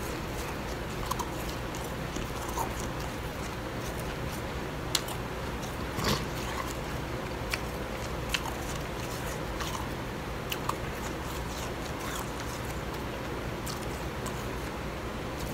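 Scattered sharp crunches and clicks of blended bag ice being eaten, spooned from a glass bowl, over a steady background hiss.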